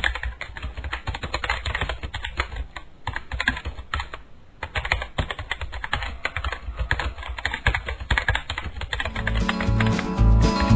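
Rapid, irregular keyboard typing clicks, a typing sound effect accompanying the animated text. Acoustic guitar music comes in near the end.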